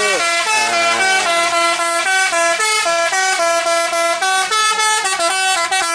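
A tour bus's multi-tone 'telolet' musical horn playing a loud tune. It opens with a sliding pitch sweep, then runs through quick stepped notes in short phrases with brief gaps.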